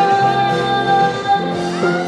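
Live music: a young woman sings one long held note into a microphone over a live band's accompaniment with keyboard. The held note ends about three-quarters of the way through while the accompaniment carries on.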